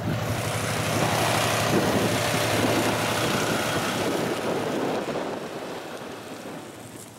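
An engine running steadily under a loud rushing noise that builds about a second in, then fades away over the last couple of seconds.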